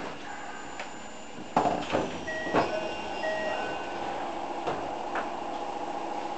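Toei Shinjuku Line train's passenger doors moving with a sudden clunk and clatter about a second and a half in. A door chime of short two-pitch beeps follows, over the train's steady hum.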